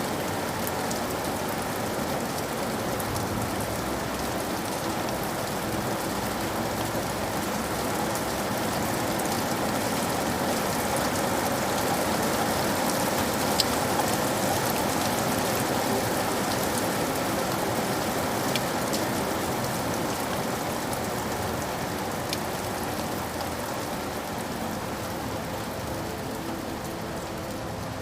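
Steady rain falling, with the patter of many individual drops hitting a surface; the downpour swells a little toward the middle and eases slightly near the end.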